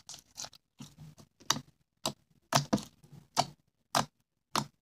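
Hard white slime being squeezed and kneaded in the hands, giving an irregular string of sharp pops and clicks, about two or three a second.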